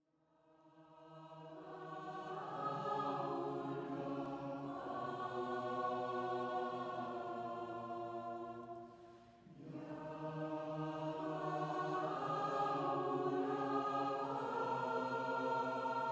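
Choir singing in long held chords, fading in over the first two or three seconds, with a short pause between phrases about nine seconds in before the voices come back in.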